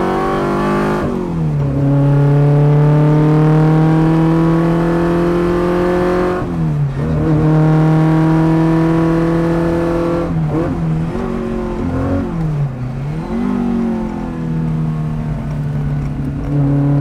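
Small four-cylinder engine of a classic Abarth racing car at full throttle on track. Its pitch climbs steadily, drops sharply for a gear change about six and a half seconds in, and climbs again. Between about ten and fourteen seconds there are quick dips and short throttle blips as it brakes and downshifts for a corner, and then it pulls hard again near the end.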